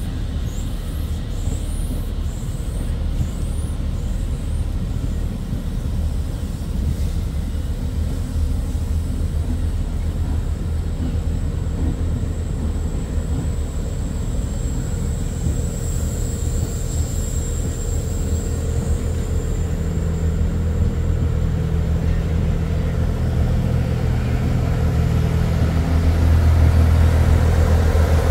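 Low, steady rumble of a train's engine, growing louder near the end, with a faint high whine in the middle.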